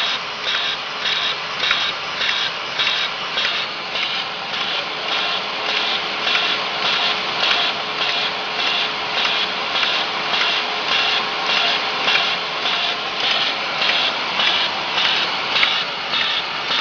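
Fully automatic hard capsule filling machine running: a regular pulse about twice a second as its rotary turret cycles, over a steady mechanical hum.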